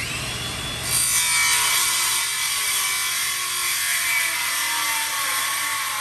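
Circular saw starting up, then cutting steadily through a wooden rafter board, the blade biting into the wood about a second in and running through it without a break.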